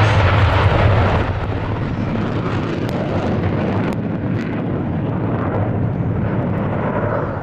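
Jet noise from an F-111C's twin TF30 turbofan engines as it flies its display. It is loudest for about the first second, then eases to a steady rumble.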